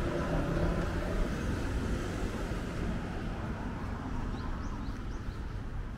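Road traffic on a city street, a low rumble that slowly eases off, with a few short high chirps about four to five seconds in.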